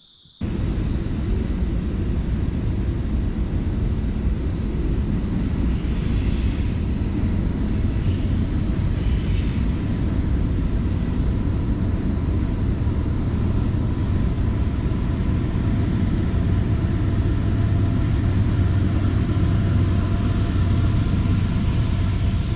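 Steady low rumble of wind across the microphone as the kayak runs under its electric trolling motor, with a faint steady motor whine; it starts abruptly about half a second in.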